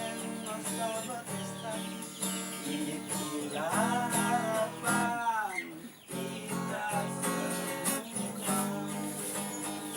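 Acoustic guitar strummed steadily in an instrumental passage of a folk song. In the middle a sliding melodic line rides over the strumming and falls away about five and a half seconds in.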